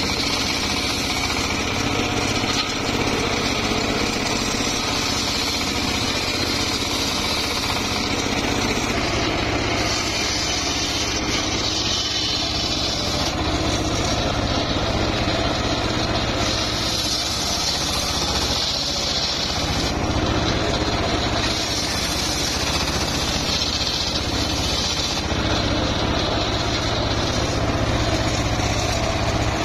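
Engine-driven homemade table circular saw running steadily, its blade ripping mahogany lengthwise into rafter stock. The higher cutting hiss swells several times as the wood is pushed through the blade.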